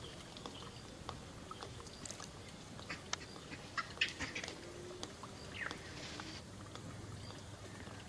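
Brief high squeaks and short cries from a baby macaque. The loudest cluster comes about four seconds in, and a falling call follows shortly after, among scattered faint clicks.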